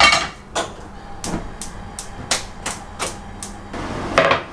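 Frying pan set down on a gas hob, then the hob's spark igniter clicking repeatedly, about three clicks a second, until the burner catches at about three and a half seconds in and runs with a steady rushing hiss. A bamboo cutting board is set down on the counter with a knock near the end.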